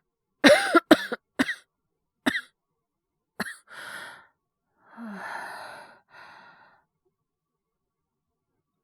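A man's acted coughing fit as a character with a cold and fever: a run of harsh coughs in the first second and a half, two more single coughs, then a few long, breathy sighs.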